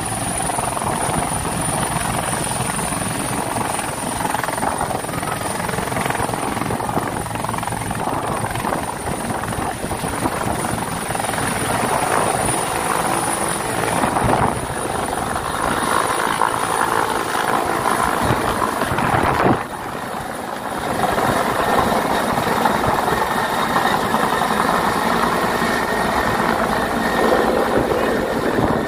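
Helicopter rotor and engine running loud and steady as the helicopter lifts off, hovers low and climbs away.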